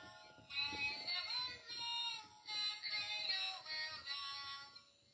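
Plush rocking bear toy's built-in sound unit playing a children's song with a synthesized singing voice, in short phrases with brief breaks.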